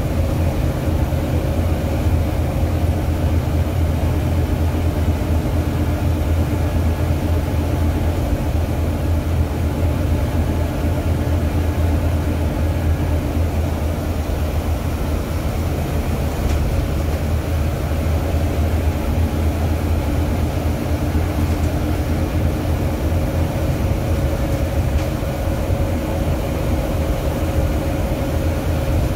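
Volvo B9TL double-decker bus under way, its six-cylinder diesel running steadily with a deep hum and a couple of steady higher drivetrain tones over road noise, heard inside on the upper deck.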